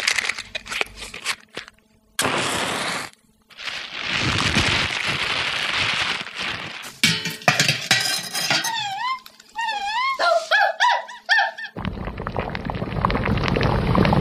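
Cooking sound effects: metal pots and utensils clinking and knocking, with long hissing stretches between them. A few wavering high calls follow about two-thirds of the way in, then a steady low rushing noise near the end.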